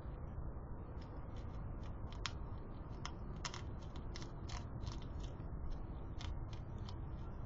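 European hedgehog crunching dry food pellets at a feeding tray: irregular crisp clicks, several a second, over a steady low hiss.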